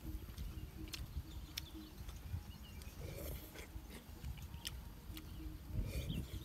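Close-up eating sounds: a spoon scraping and clicking against the inside of a young green coconut, with chewing and slurping of the soft coconut flesh. Several sharp clicks, over a steady low rumble.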